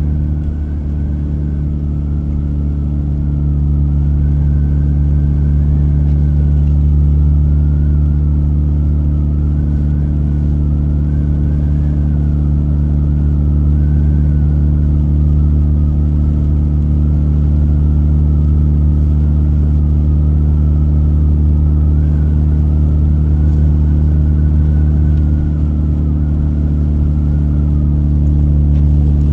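Steady low drone of a car's engine and road noise heard from inside the cabin at a constant speed, with a faint wavering whine above it.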